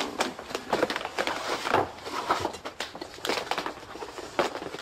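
Footsteps and clothing rustle, with light knocks and rustling as a book is picked up and handled. Irregular short clicks and knocks throughout.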